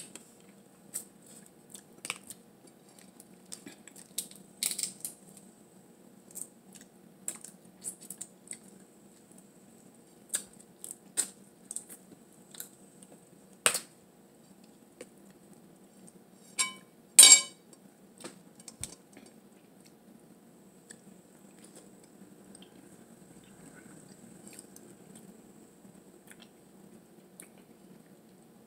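Blue crab shells being cracked and picked apart by hand: scattered sharp clicks and snaps, with a loud crack a little past halfway.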